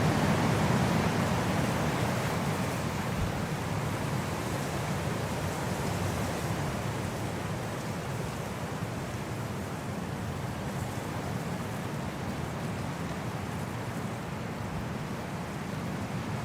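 Wind blowing in a steady, rushing noise, strongest at the start and easing slightly over the first few seconds.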